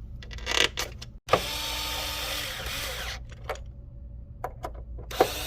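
Electric screwdriver running as it drives the PS5's rear security screws back in. One run of about two seconds, then a few light clicks, then a second run starting near the end.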